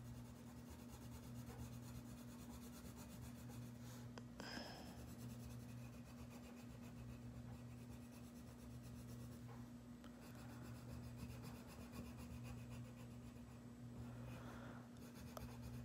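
Faint scratching of a coloured pencil shading on paper, with a few slightly stronger strokes, over a steady low hum.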